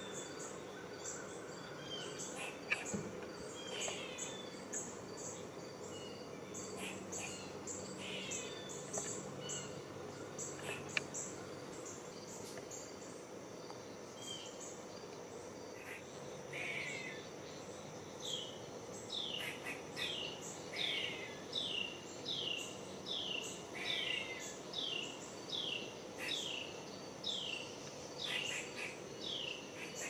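An animal calls in a steady run of short, falling whistled calls, about one and a half a second, starting a little past the middle. Scattered chirps come earlier. A continuous insect chirping runs underneath.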